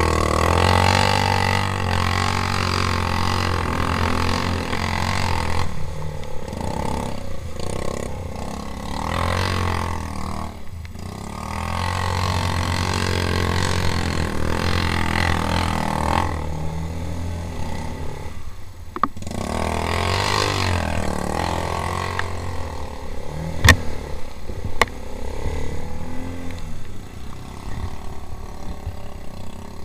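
Four-stroke quad bike engine running with the throttle opening and easing off again and again as it rides a trail, with two sharp knocks about three quarters of the way through.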